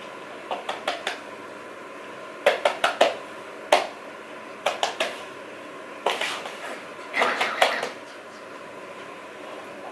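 Fingers tapping on a wooden floor to call a puppy: quick taps in short bursts of three or four, repeated half a dozen times, the last two bursts more like scrabbling pats.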